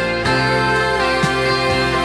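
Dutch symphonic rock playing from a 7-inch vinyl single on a turntable: an instrumental stretch of held chords with a drum hit about once a second.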